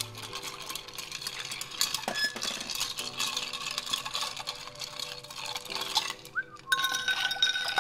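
Bar spoon stirring ice in a glass mixing glass: a fast, steady chink and rattle of ice cubes against the glass, over soft background music. The stirring grows louder near the end.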